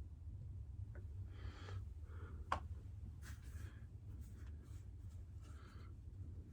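Soft scratching and rubbing of fingers working a bead of fresh clay into the joint of a stoneware oil burner, in short separate strokes, with one sharp click about two and a half seconds in, over a low steady hum.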